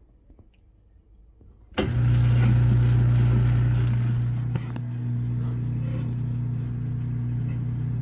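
Washing machine drain pump switching on about two seconds in and running with a loud, steady hum that holds a constant pitch. The machine drains but will not spin and keeps restarting its cycle.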